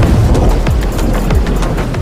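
Electronic intro music with a steady beat and heavy bass.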